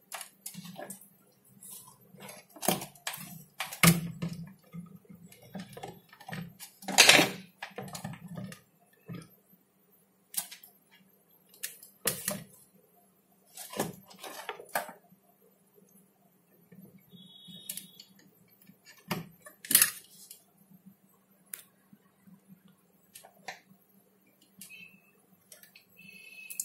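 Irregular clicks and knocks of power and SATA cables and plastic connectors being handled and plugged in on a bare PC test bench, with a faint low hum in the first few seconds and a brief high tone about two-thirds through.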